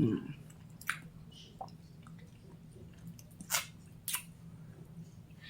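A person drinking soda: a few quiet, separate gulps and wet mouth clicks.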